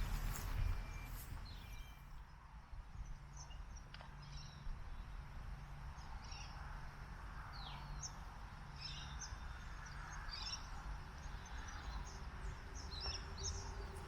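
Small birds chirping in many short, scattered calls over a low, steady outdoor rumble.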